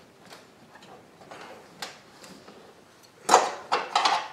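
Hand tool clicking and clinking against metal parts in a car's engine bay while a push-in hose connector is worked loose: faint scattered ticks, then a quick run of sharp metallic clacks about three seconds in.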